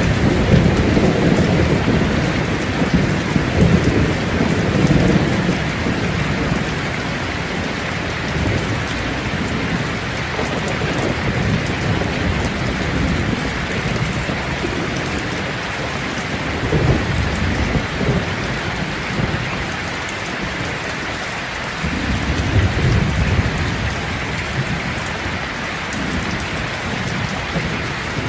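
Steady heavy rain falling on a surface, with rolling thunder rumbling low in the first few seconds, again briefly near the middle and once more a little over three quarters of the way through.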